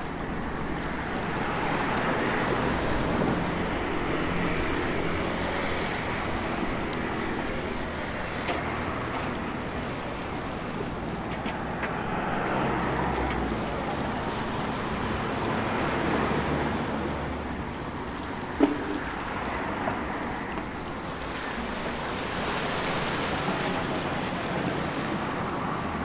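Small sea waves washing against shore rocks, swelling and fading every several seconds, over a steady hum of street traffic. A single sharp click about two-thirds of the way through.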